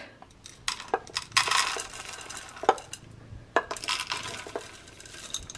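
Dry cat kibble poured from a scoop into ceramic bowls, the pellets rattling and clinking against the bowls in two pours, with a few sharp clicks between.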